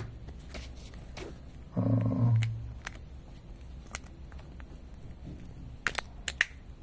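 Light handling clicks and taps scattered throughout, a tight cluster of them near the end, with a short low hum about two seconds in.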